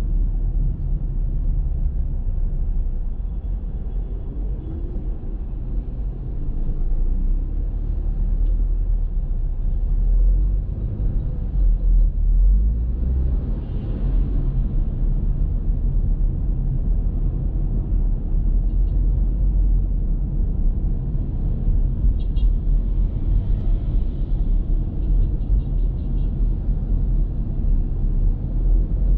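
A car driving: steady low rumble of engine and road noise, with no sudden events.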